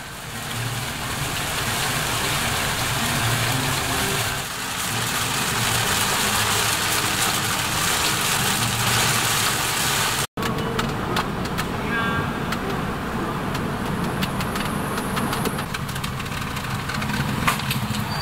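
Toyota Raize driving on a wet road in the rain: steady road, rain and engine noise, broken by a brief cut about ten seconds in.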